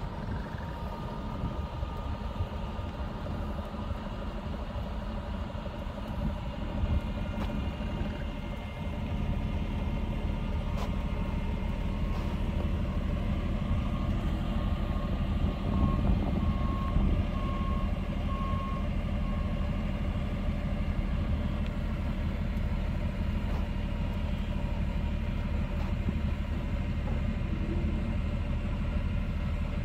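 Fire truck's diesel engine running steadily under load as the extended aerial ladder swings, growing louder about a third of the way in. Midway, a warning alarm beeps at one pitch, about once a second, for several seconds.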